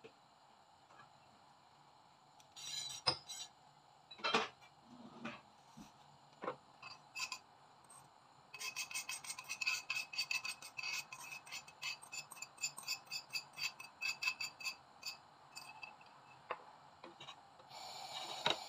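Metal kitchen utensil clinking and scraping against a bowl of beaten egg: a few separate knocks, then a long run of quick, regular strokes. A steady hiss comes in near the end.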